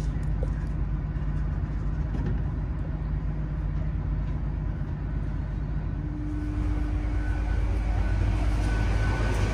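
Low steady rumble of a Great Western Railway Intercity Express Train, heard from inside the carriage as it draws slowly along a station platform. A steady hum comes in about six seconds in.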